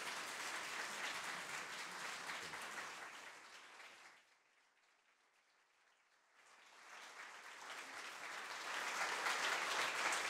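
Audience applauding, the clapping fading away about four seconds in. After about two seconds of near silence the applause swells up again and carries on.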